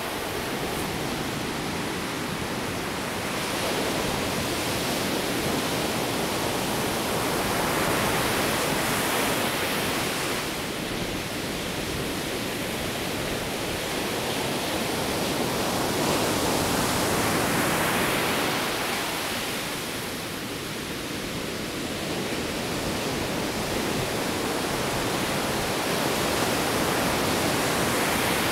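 Ocean surf breaking and washing up on a sandy beach: a continuous rush of water that swells and eases every several seconds as waves come in.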